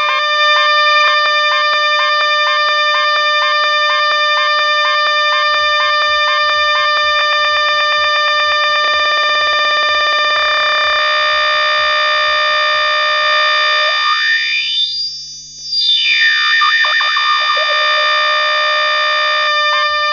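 Afro house DJ mix: a held synthesizer chord over a repeating beat. About two-thirds of the way through, an effects sweep rises and then falls in pitch, and the music briefly dips in level.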